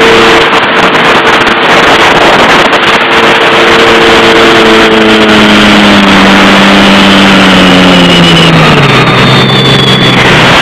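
Jet ski engine running at speed, then throttling back: its pitch holds steady for a few seconds, then falls steadily to a low idle near the end. Heavy wind and water rush throughout.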